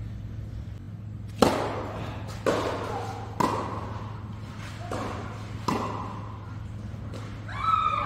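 Tennis ball struck back and forth by racquets in a rally: five sharp pops over about four seconds, each with a short echo, the fourth fainter.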